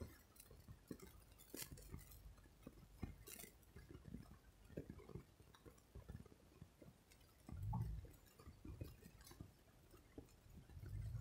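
Near silence inside a car cabin: faint scattered clicks, with a brief low rumble about two-thirds of the way through and another building near the end.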